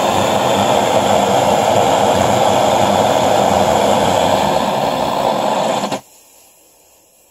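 Clayton and Lambert brass pressurized blowtorch burning with a loud, steady rushing noise. It cuts off abruptly about six seconds in as the valve is closed, leaving only a faint hiss.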